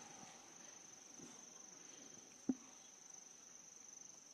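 Near silence with a steady high cricket trill in the background, and one short soft knock about two and a half seconds in.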